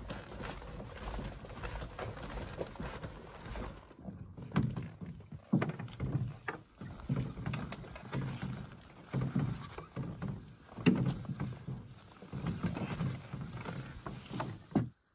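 Footsteps and irregular thumps and knocks of a canoe portage on a forest trail: a steady rustling for the first few seconds, then uneven thuds with sharp clicks. The sound cuts off suddenly near the end.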